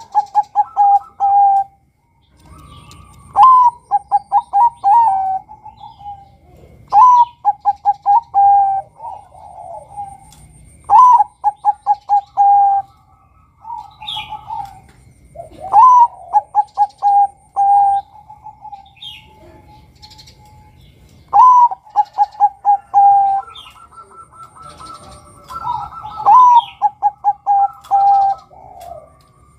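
Male Bangkok-type zebra dove (perkutut) singing its cooing song seven times, about every four to five seconds. Each phrase is a rising note, then a quick run of short coos ending on a longer held coo.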